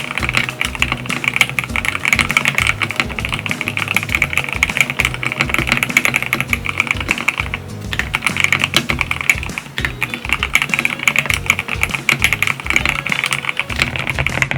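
Fast continuous typing on a mechanical keyboard with lubricated switches, a dense stream of keystroke clacks that pauses briefly about halfway through, over background music.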